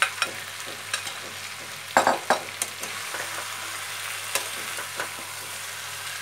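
Marinated mutton and onions sizzling in hot mustard oil in a kadai as they are stirred and turned with a spatula, which knocks against the pan several times, loudest about two seconds in. The meat has just gone into the oil to be browned (kosha).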